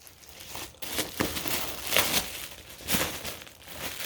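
A Maltese dog ripping open a package: irregular crinkling and tearing of the packaging, in bursts that are loudest about one, two and three seconds in.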